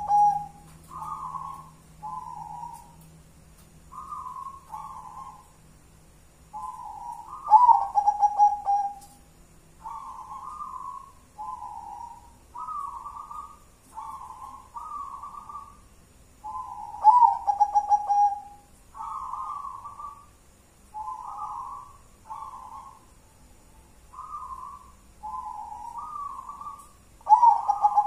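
Caged zebra dove (perkutut) cooing. About every ten seconds it gives a loud phrase of quick stuttering notes ending in a longer, lower coo, three times in all, with softer coos about once a second in between.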